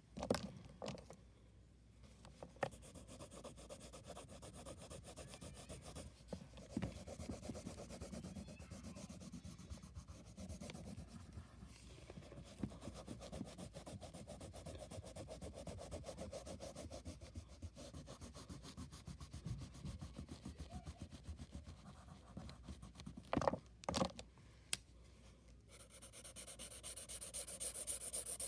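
Wax crayon rubbing back and forth on paper in quick, continuous strokes while colouring in a drawing. A few sharp clicks come near the end, followed by a brighter, hissier scribbling on the paper.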